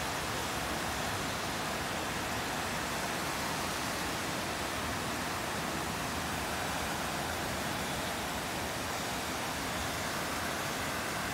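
Heavy rain pouring down steadily: an even, unbroken hiss.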